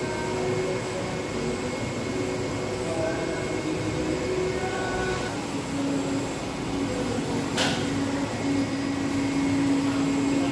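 Large-format UV inkjet printer running as its print carriage shuttles across the vinyl: a steady mechanical hum with a motor whine that shifts pitch now and then. One sharp click about seven and a half seconds in.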